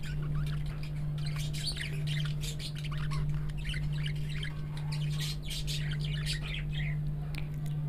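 Spoonfuls of flour batter sizzling and crackling as they deep-fry in hot soybean oil, with many quick pops and small squeaks over a steady low hum.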